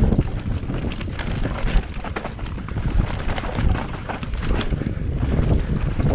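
Wind rushing over the microphone of a rider on the move, with the rattle and clatter of a bike running over rough ground.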